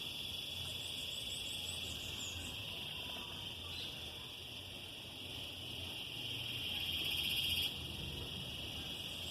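Cicadas buzzing in a steady, high summer chorus; one grows louder and then cuts off suddenly near the end.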